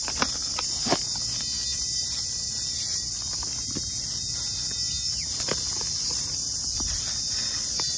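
Steady high-pitched chorus of insects, with a few faint crunches of footsteps on dry leaf litter.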